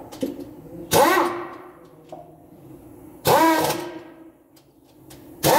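A small motor spinning up and winding down in short bursts, three times about two seconds apart, each starting suddenly and rising then falling in pitch, over a steady low hum.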